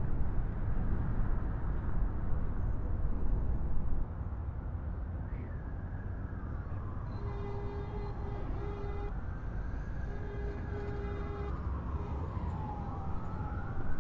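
Emergency-vehicle sirens wailing, their slowly rising and falling pitches overlapping, starting about five seconds in over the low rumble of a subway train running. The rumble drops in level about four seconds in, and a steady held tone sounds twice in the middle.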